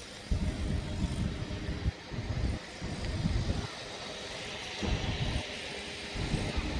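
Wind buffeting the microphone in irregular low rumbling gusts, over a steady outdoor hiss.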